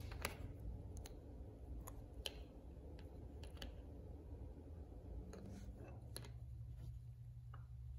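Light, scattered clicks and taps of small plastic parts being handled: a white styrene piece pressed against the black plastic base of a Hot Wheels car, about a dozen faint clicks over a low steady hum.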